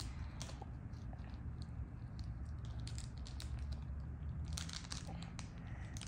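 Thin clear plastic bag crinkling faintly in a child's hands as a small toy planet ball is worked out of it, with a short burst of sharper crinkles about four and a half seconds in.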